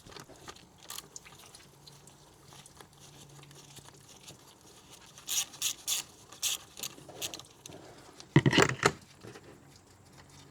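Hand tools working loose a thermostat-housing bolt: a few quick sharp metallic clicks near the middle, then a louder clunk and rattle about two seconds later.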